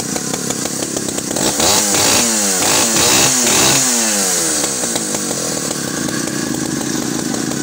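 Alpina 070S vintage chainsaw's two-stroke engine running, blipped up and down in revs several times in quick succession about one and a half seconds in, then settling back to a steady idle.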